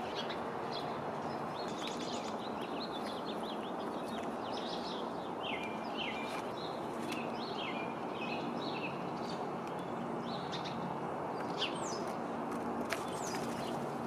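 Small songbirds chirping repeatedly in quick, overlapping short calls, some sliding downward in pitch, over a steady outdoor background hiss. Two sharp clicks sound about a second apart near the end.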